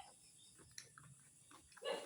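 Mouth-close chewing of crispy deep-fried pig's face: faint crunches and smacks, with a louder short smack or crunch near the end.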